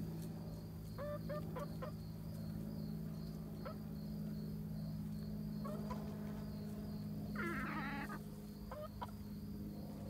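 Chickens clucking: a few short calls, with a longer, louder call about seven and a half seconds in, over a steady low hum.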